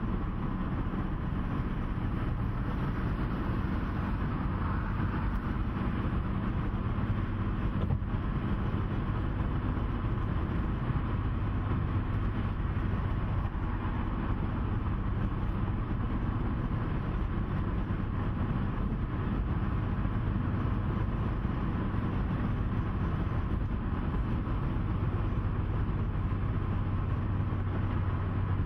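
Steady engine hum and tyre rumble heard from inside a vehicle cruising on a highway, with a low drone that holds constant throughout.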